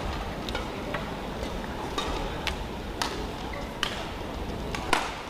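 Shuttlecock being struck back and forth by badminton rackets in a doubles rally: sharp, irregular hits every half second to a second or so, the loudest near the end, over a steady low hall background.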